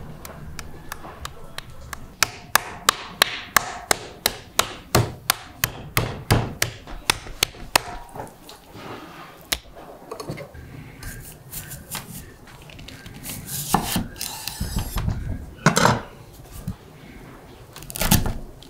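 A quick run of sharp knocks on wood, about three or four a second for some six seconds, from food prep on a wooden board. Then come scattered handling knocks and rustles.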